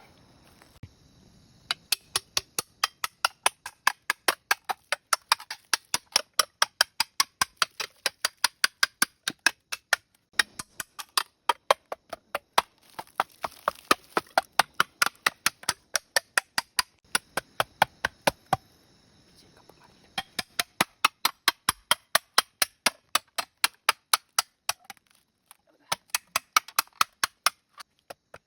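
Rapid, evenly spaced chopping strikes on bamboo, about three or four a second. They pause briefly a little past halfway, then go on.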